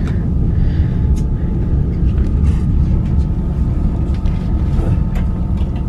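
Steady rumble of a moving passenger train heard from inside an old platskart sleeper carriage: wheels running on the rails, with a faint steady whine and a few light clicks.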